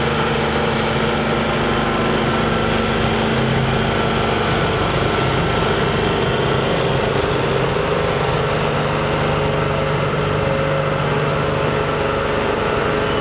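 Carlton 7015 stump grinder's engine running steadily, an even drone with no grinding strikes.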